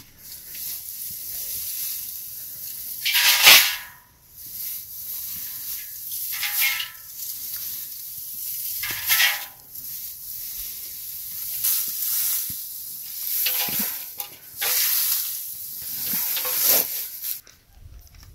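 Dry hay rustling as it is scooped up by hand and dropped into a metal basin, in repeated swishing handfuls every couple of seconds, the loudest about three and a half seconds in.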